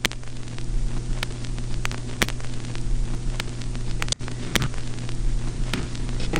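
A steady low electrical-sounding hum under hiss, with scattered sharp crackles and clicks, and a brief dropout about four seconds in.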